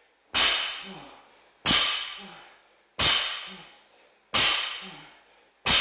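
A barbell loaded with 60 kg of bumper plates is set down on a rubber gym mat at each deadlift rep. Five sharp impacts come about 1.3 seconds apart, each ringing out as it fades.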